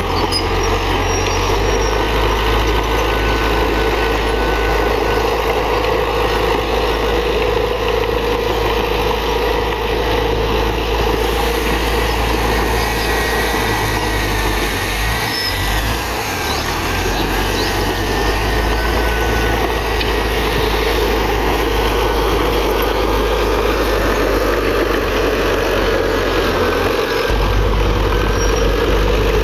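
Heavy earthmoving machinery's diesel engine running steadily, with faint thin whining tones over it.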